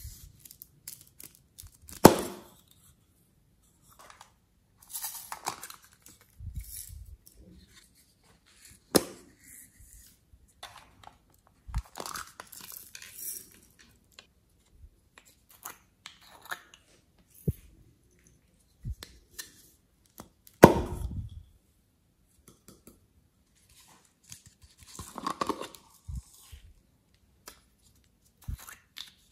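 Small plastic containers and lids being handled and pried open: a few sharp plastic snaps, the loudest about two seconds in and again about twenty seconds in, with scraping and rustling of plastic in between.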